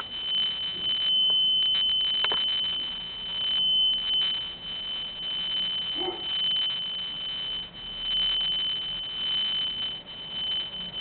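A fire alarm system sounding one steady, unbroken high-pitched electronic tone over a faint hiss, with a few scattered clicks.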